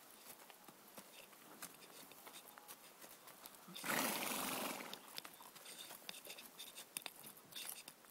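A horse gives one loud, breathy snort about four seconds in, lasting about a second, over faint scattered clicks of hooves on stony ground.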